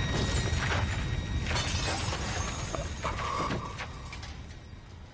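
Dramatic film sound effects: a deep low rumble with scattered cracking and breaking sounds, fading away over the last couple of seconds.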